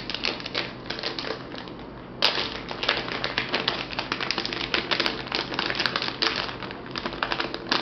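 Rapid, irregular clicking and rustling from small objects being handled, louder and busier from about two seconds in.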